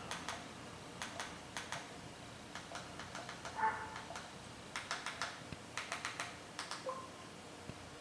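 Faint, quick clicks of remote-control buttons being pressed, mostly in twos and threes, while a menu is scrolled. A short tone sounds about halfway through.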